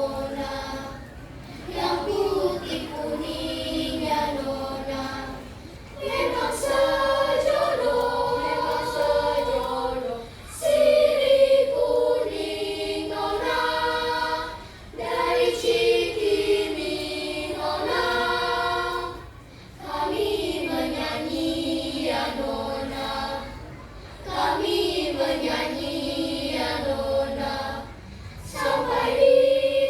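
Elementary-school children's choir singing, in phrases of a few seconds each separated by short breaths.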